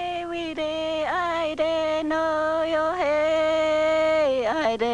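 A woman singing solo in long held notes with short glides between them, stepping down to lower notes near the end.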